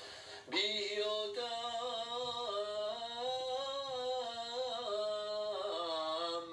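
A man's voice chanting the Torah reading in traditional cantillation, holding one long melismatic phrase that steps up and down between sustained notes, starting about half a second in.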